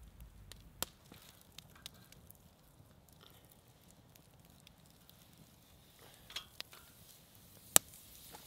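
Wood campfire crackling with scattered sharp pops, a louder pop a little under a second in, and one loud sharp click near the end.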